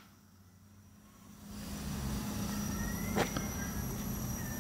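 A steam boiler's blowdown valve hiss cutting off abruptly right at the start as the valve is shut, then quiet background with a faint steady hum and a single sharp click about three seconds in.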